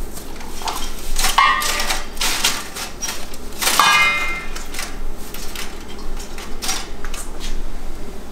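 Dishes and wrappings being handled on a kitchen counter: scattered clinks, taps and rustles, with two louder ringing clinks about a second and a half in and again near four seconds.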